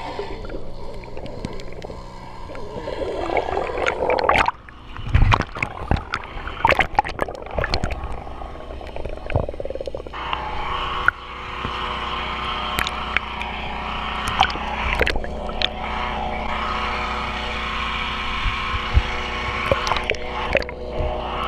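Muffled underwater sound in a GoPro housing while mussels are pulled from a pontoon by hand: scattered sharp clicks and knocks, thickest in the first half, over water noise. A steady hum joins about halfway through.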